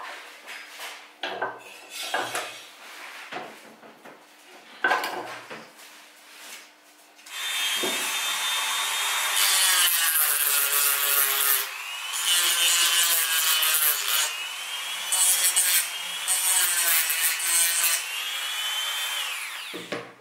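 A few light knocks and clicks, then about seven seconds in a high-speed rotary tool with an 80-grit flap wheel starts up and runs with a high whine and rasp as it sands the edge of a kydex sheath. Its pitch shifts several times as it runs, and it winds down near the end.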